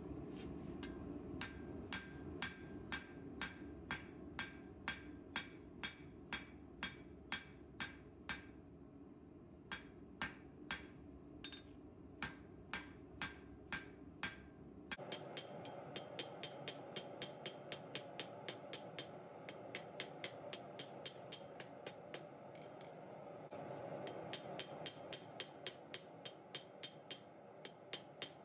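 Hand hammer striking a red-hot steel bar on an anvil in a steady rhythm, about two to three blows a second, each with a short metallic ring, as the bar is forged into a chisel.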